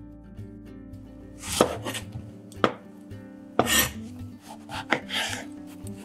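Kitchen knife cutting eggplants on a cutting board: about five sharp cuts, the blade knocking on the board and scraping through the skin, over soft background music.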